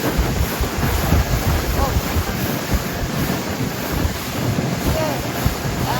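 Wind buffeting the microphone on a moving boat, with a steady rush of water.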